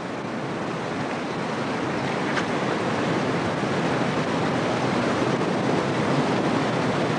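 Steady rushing of river water, an even wash of noise that grows slowly louder.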